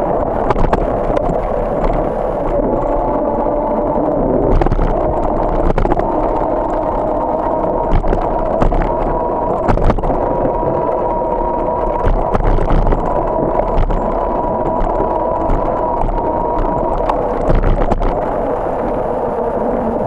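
Bicycle rolling along a paved street, heard from a camera mounted on the bike: steady road and wind noise with a steady hum, and frequent short clicks and knocks as it goes over the pavement.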